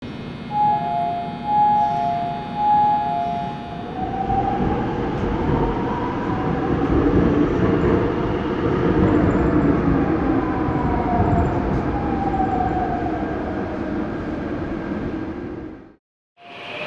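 Seoul Subway Line 5 electric train pulling away. A two-tone alternating signal sounds three times, then the traction motor and inverter whine climbs in pitch and later sinks as the train gathers speed, over a steady rumble of wheels on rail. The sound cuts off just before the end.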